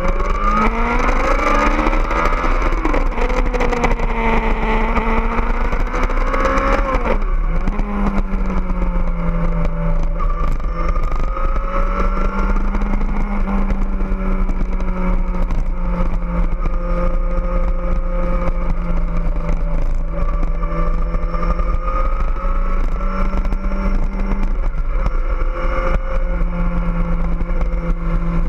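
Kawasaki ZX-14R's 1441 cc inline-four engine under way: the revs rise at the start, waver, and drop sharply about seven seconds in, then the engine runs at a steady cruising pitch. A steady low wind rumble on the microphone lies under it.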